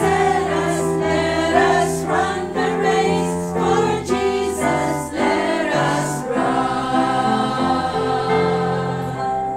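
Women's choir singing a gospel hymn together, holding long notes.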